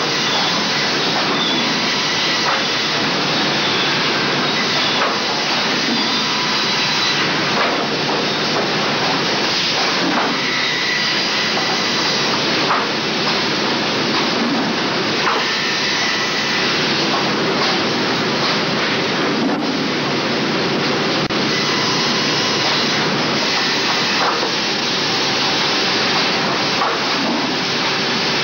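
Pendu Circular Line Bar, a double-arbor multi-saw circular resaw, running with its infeed conveyor: a loud, steady, dense mechanical noise with faint brief high whines now and then.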